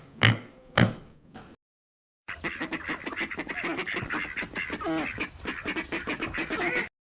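A few short, sharp animal calls about half a second apart, then after a brief silence a flock of ducks quacking in a dense, continuous chatter.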